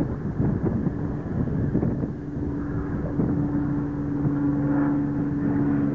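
An engine running with a steady low hum that comes in about a second in and grows clearer, over wind buffeting the microphone.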